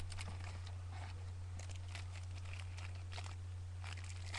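Trading cards and pack wrapper being handled, a run of quick crinkles and clicks, over a steady low hum.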